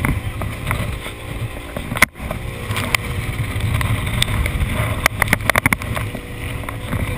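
D-class inshore lifeboat running at speed through a swell: its outboard engine running steadily under a rush of wind and water, with a cluster of sharp knocks a little after five seconds in.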